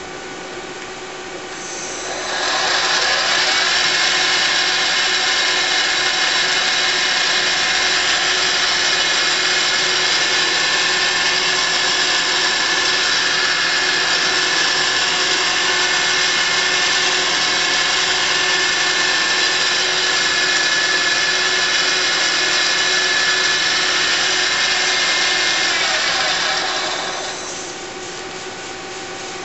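Mazak ST-20 CNC lathe spindle spinning up about two seconds in with a rising whine, running steadily at speed for over twenty seconds, then winding down with a falling whine near the end.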